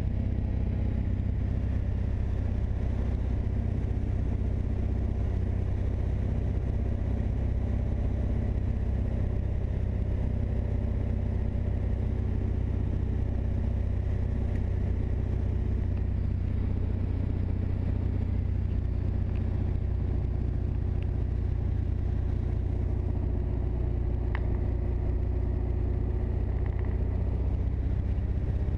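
Single-engine Mooney's piston engine and propeller running steadily, heard from inside the cockpit.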